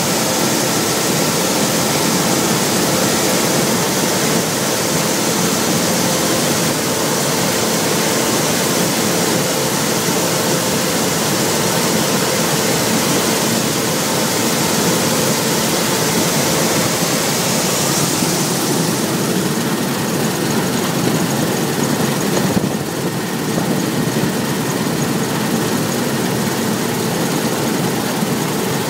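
Claas Lexion 600 combine harvester running steadily: a constant engine and machinery drone with a hiss over it that eases about twenty seconds in.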